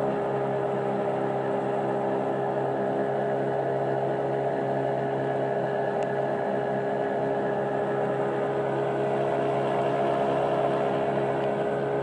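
Boat engine running at a steady speed: a constant droning hum that does not change in pitch or level.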